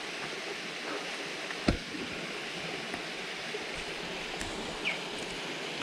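Steady rushing noise with a few sharp knocks, the loudest about a second and a half in.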